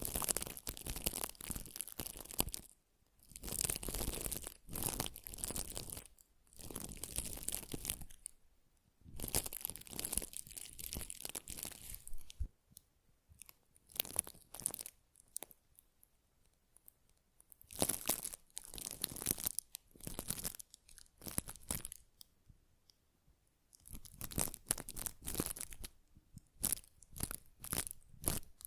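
Close-miked crackly, scratchy rustling from ASMR facial-care trigger sounds, coming in bursts of one to two seconds with short pauses between them.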